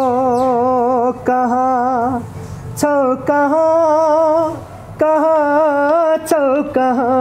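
A man singing a slow Nepali love song alone, holding long notes with a wavering vibrato in a high register, with a couple of short pauses for breath.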